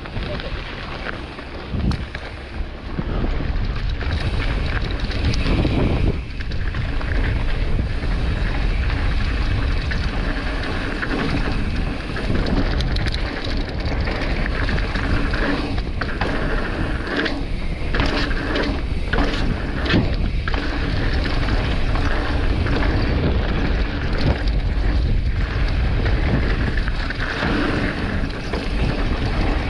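Wind buffeting the microphone of a mountain bike rider descending a trail, with the bike rattling and knocking over bumps.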